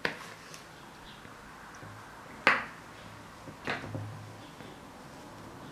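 Sharp clinks of a metal fork against a porcelain teacup as a crumbly bird-feed mix is packed into it: one near the start, the loudest about two and a half seconds in, and another about a second later.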